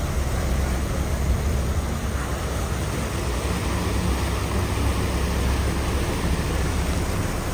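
Steady low drone of a large whale-watching boat's engines under way, with a rush of wind and water over it.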